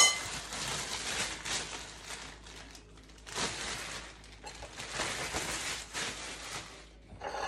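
Clear plastic bread bag crinkling and rustling in several bursts as it is handled and opened, with a sharp clink at the very start.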